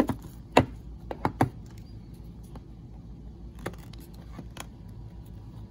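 Small cardboard boxes of diecast model cars being handled: a few sharp taps and scrapes as they are picked up and knocked together, the loudest near the start, over a low steady hum.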